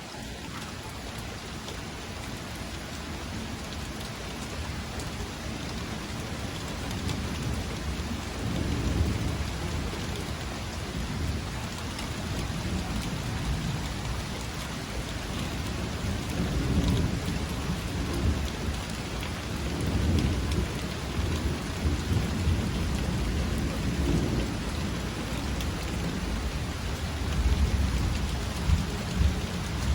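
Steady rain falling, an even hiss, with deep rumbling swells rising and fading several times and growing louder toward the end.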